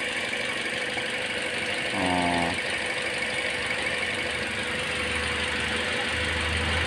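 Toyota Altis engine idling steadily with the coolant system open while gas keeps bubbling up through the coolant, which the owner takes for combustion pressure leaking past a blown head gasket or a warped cylinder head.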